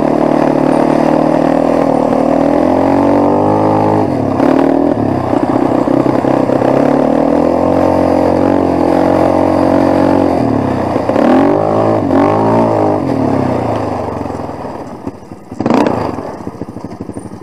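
Quad (ATV) engine running under way, revving up and easing off several times. It drops back toward idle near the end, and a brief loud knock comes shortly before the end.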